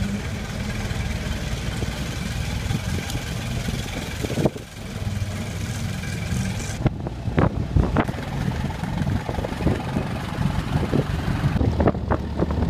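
Vintage car's engine running at low speed, heard from inside the cabin. From about seven seconds in, sharp knocks and rattles come over the engine hum, more of them near the end.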